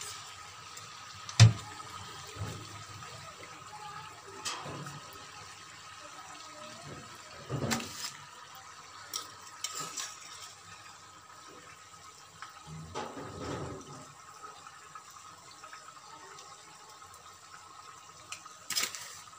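Coated chicken doughnuts deep-frying in oil, a steady bubbling sizzle, with metal tongs knocking against the pan a few times as the golden-brown doughnuts are turned and lifted out. The sharpest knock comes about a second and a half in.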